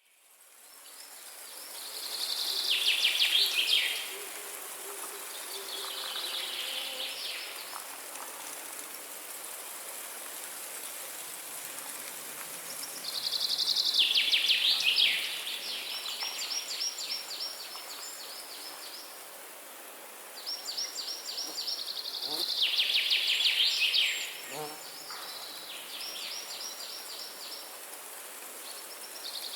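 Forest songbird singing rapid trilled phrases, each a fast series of notes, repeated every few seconds over a steady high hiss.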